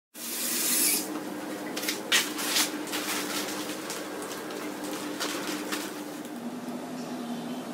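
Indoor room noise with a steady hum, a burst of hiss in the first second and a few sharp clicks or rustles about two seconds in.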